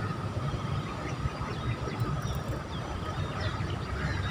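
Outdoor ambience: a steady low rumble with a faint steady high hum and a few faint short chirps.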